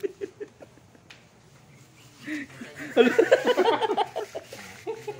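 Men laughing: a rhythmic laugh trails off in the first half second, then after a short lull a louder burst of laughter comes about three seconds in.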